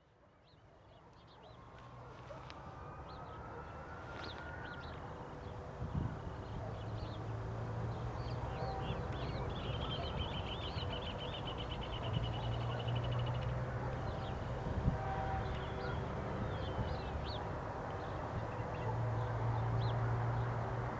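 Diesel freight locomotive approaching slowly, its engine a steady low drone that fades in over the first few seconds, with birds chirping and trilling over it and a couple of brief knocks.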